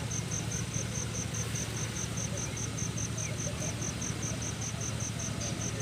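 A cricket chirping in a steady, even pulse of about five chirps a second, over a low steady hum.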